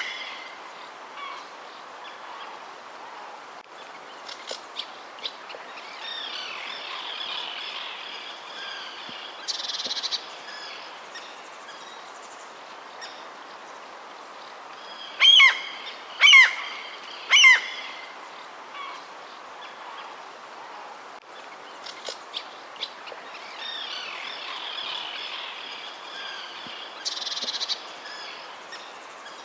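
Wild birds calling over a steady background hiss. Midway come three loud calls, each sliding sharply down in pitch, about a second apart; softer chirping and twittering fills the stretches before and after.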